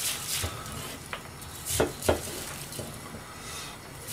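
Kitchen utensils and dishes being handled: a few scattered clinks and knocks, with two louder knocks close together about two seconds in.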